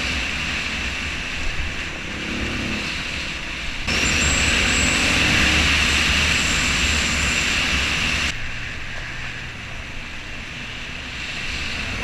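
Wind rushing over the microphone, with road rumble beneath it, during a fast downhill ride. The noise jumps louder about four seconds in and drops back about eight seconds in.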